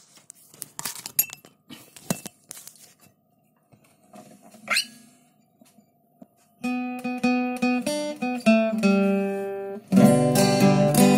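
Scattered handling knocks and clicks with a short rising squeak about four and a half seconds in, then an acoustic guitar picking single notes from about six and a half seconds in and breaking into loud strummed chords near the end.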